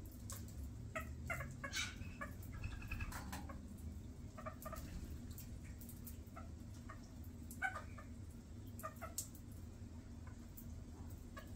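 Water splashing and dripping in a birdbath as a grey butcherbird bathes under sprinkler spray, with scattered sharp drops and splashes; the loudest come near the end. Short animal call notes come and go among them, thickest about two seconds in.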